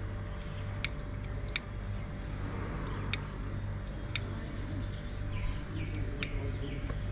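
Light clicks and clinks of small objects being handled at an offering-lamp counter, eight or so scattered through, over a steady low rumble.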